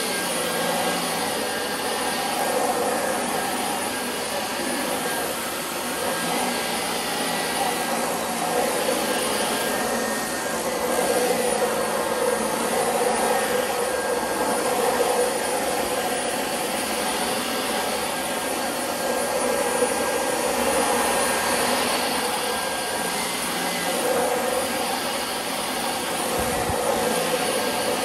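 Dyson DC25 upright vacuum cleaner running while vacuuming, a steady motor whine with a thin high tone over airflow noise. Its sound swells and eases every few seconds.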